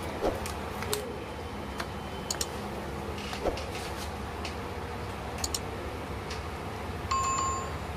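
Scattered light plastic clicks and knocks as the keyboard top case of an ASUS VivoBook X541UA laptop is lowered onto the base and handled into place. A short electronic beep sounds near the end.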